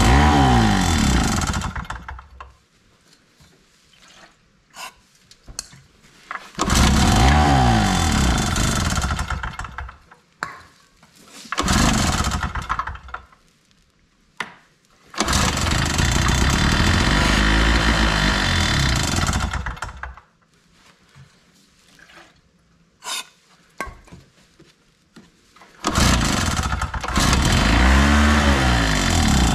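Chicago Electric 2 hp two-stroke portable generator engine being pull-started again and again: five times it catches, revs up for a few seconds and dies away, with quiet gaps between. The owner takes this start-and-die behaviour as the sign that the carburetor needs cleaning.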